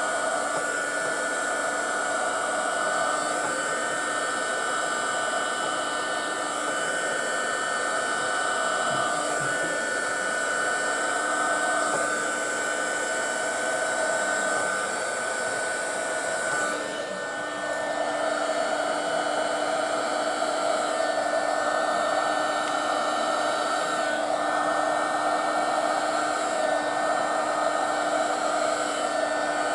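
Electric heat gun running steadily, its fan whirring with a constant hum, dipping briefly a little past halfway.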